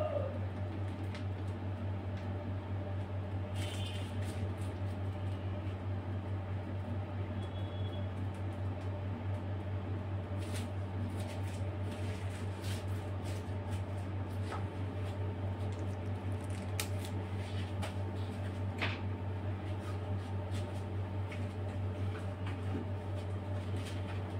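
A steady low hum with faint, scattered clicks and soft squishy rustles as a piping bag of buttercream is handled and squeezed.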